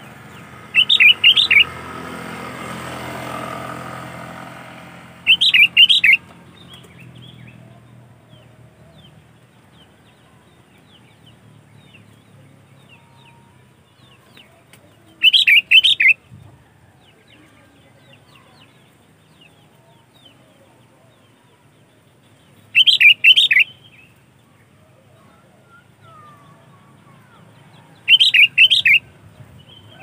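Caged sooty-headed bulbul singing: five short, loud, quick warbled phrases spaced several seconds apart, with faint chirps between them.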